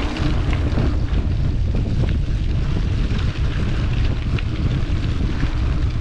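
Wind rumbling steadily on the microphone of a mountain bike climbing a dirt forest road, with faint scattered crunches from the tyres on the track.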